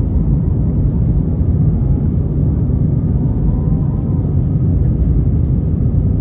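Airbus A320 jet engines at takeoff, a steady deep rumble.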